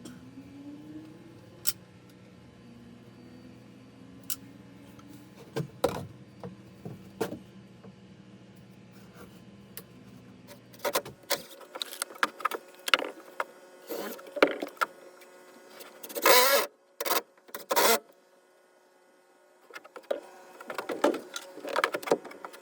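Clicks and knocks of wood being fitted by hand, with two short bursts from a small electric power tool about two-thirds of the way through. A steady low hum stops about halfway.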